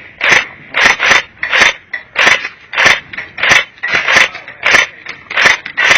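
Airsoft electric gun, an H&K UMP .45 electric-blowback AEG, firing single shots, about two a second at uneven intervals. Each shot is a sharp, short crack.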